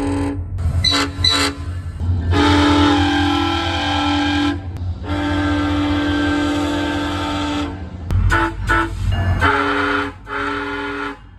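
SunRail commuter train's multi-chime air horn sounding in a series of blasts: two short toots, two long blasts, then four shorter ones, over a steady low rumble.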